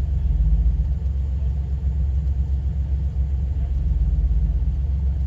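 Jeep's engine running at low revs in a steady low rumble as the Jeep crawls slowly up a rock step.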